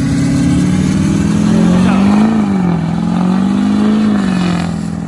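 Pickup truck doing a burnout: the engine is held at high revs, its pitch rising and falling twice, over a steady hiss from the spinning rear tires.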